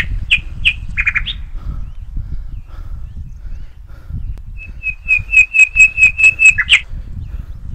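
A bird calling: a few sharp high notes at the start, then, a little past the middle, a quick even run of about a dozen piercing notes lasting about two seconds. A low rumble runs underneath throughout.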